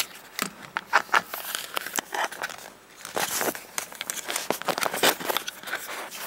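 Handling noise from a camera being moved about and fitted upside down to a mount: irregular clicks, light knocks and rustling as the body rubs and taps near the microphone.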